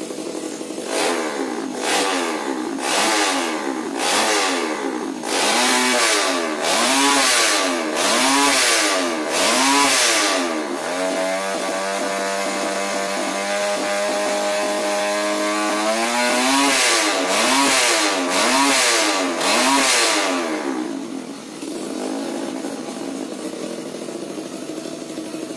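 Bored-up 250 cc Honda Tiger single-cylinder four-stroke motorcycle engine being revved: quick throttle blips about once a second, then held at a steady, slowly climbing engine speed for about five seconds, a few more blips, and finally settling to a lower, even run near the end.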